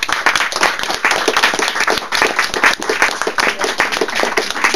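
Audience applauding: many hands clapping densely and without a break.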